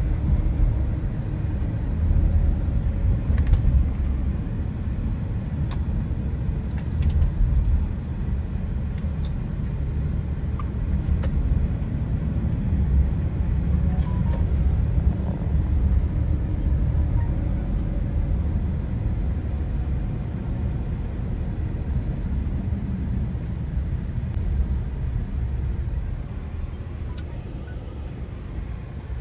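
Steady low rumble of motor-vehicle noise, with a few faint clicks scattered through it.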